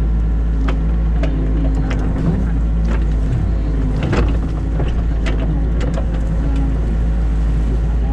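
New Holland Kobelco E50.2 mini excavator heard from the cab: diesel engine running steadily, with a wavering whine and scattered knocks and rattles as the arm and bucket move. The loudest knock comes about four seconds in.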